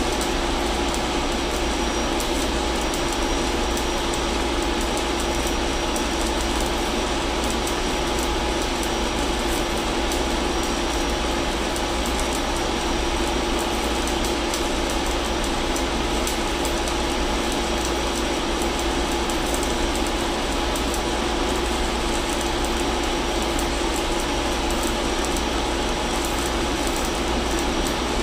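Steady drone of a ship's engine-room machinery with a constant hum, overlaid by the fine crackle of electric arc welding on a steel pipe fitting.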